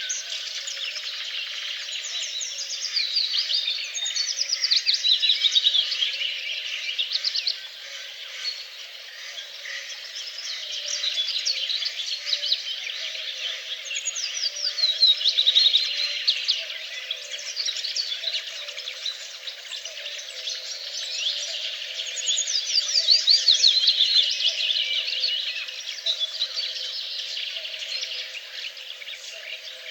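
Several birds singing together in a dawn-chorus-like mix of high, rapid trills and runs of falling notes. The songs swell and fade every few seconds.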